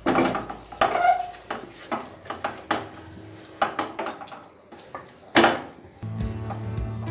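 Wooden spatula scraping and knocking against a nonstick kadai while stirring a thick spice paste, in a run of short strokes with a louder knock about five seconds in. Background music comes in near the end.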